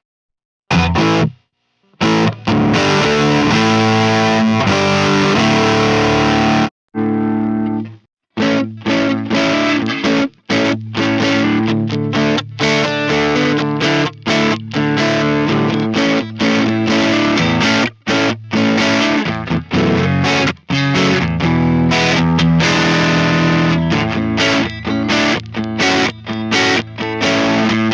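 Distorted electric guitar played through a Mesa Boogie Mark IIC+ amp simulation. It starts with a couple of short stabs and some held chords, then moves into a long run of short, choppy chords and riffs, each one cut off sharply into silence.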